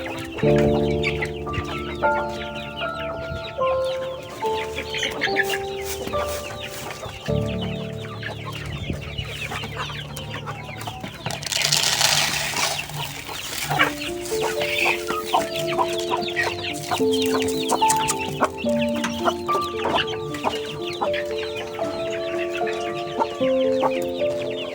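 Chickens clucking over background music with a simple melody of short held notes. A brief rush of noise about halfway through.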